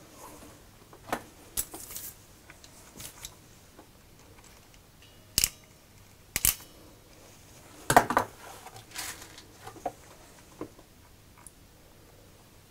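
Irregular sharp snips and clicks of hand tools working the ends of electrical wires, typical of stripping and crimping ferrules onto them. There are about a dozen, spread unevenly, and the loudest come about two-thirds of the way through.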